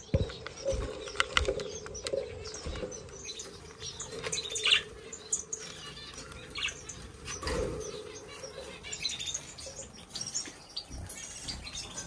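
Small cage birds chirping, with rustling and fluttering of wings and scattered sharp clicks, over a faint steady hum.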